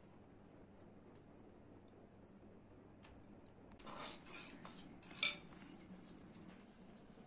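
Quiet room tone, then from about four seconds in a brief crackle of dry flatbread being lifted from a woven basket, and a second later a single sharp clink of a metal spoon against a ceramic bowl.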